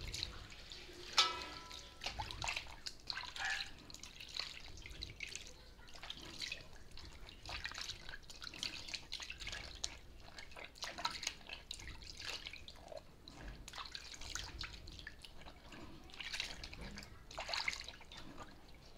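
Hands swishing and splashing in a stainless steel basin of water, rinsing off soap lather: irregular small splashes and drips, with one sharp, briefly ringing clink about a second in.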